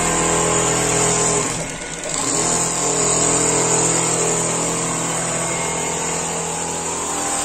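Richpeace computerised single-head quilting machine running, a steady machine hum made of several held tones over a high hiss, which dips briefly about two seconds in.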